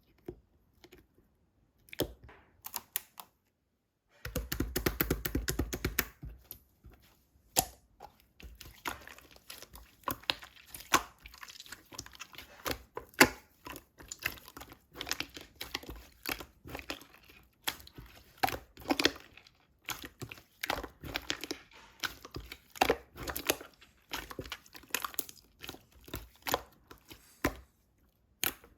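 Slime being squished, stretched and pressed by hand, with sticky crackling and irregular popping clicks, and a dense run of crackling about four seconds in.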